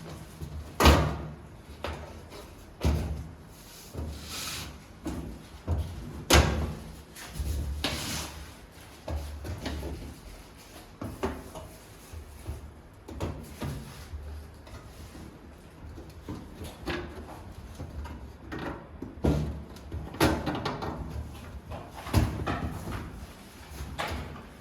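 Knocks and clatter of sheet-metal DVR rack parts being handled and fitted together, with short scrapes between the sharper hits.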